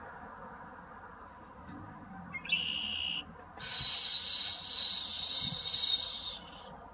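An insect buzzing high: a short buzz about two and a half seconds in, then a longer hissing buzz for about three seconds, over a low steady outdoor background.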